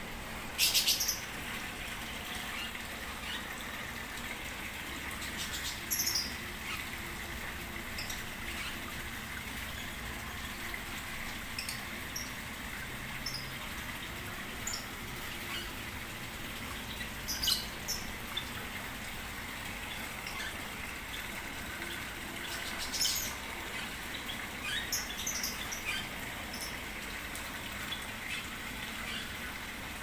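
Small birds giving short, high chirps in scattered bursts every few seconds over the steady splash of water pouring into a fish pond.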